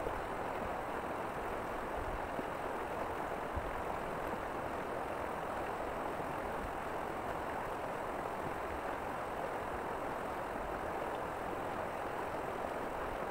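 Steady rush of river water flowing past a rocky bank.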